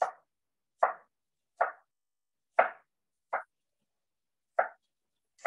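Kitchen knife coarse-chopping rolled kale on a cutting board: single chops at uneven intervals of about a second, six or seven in all.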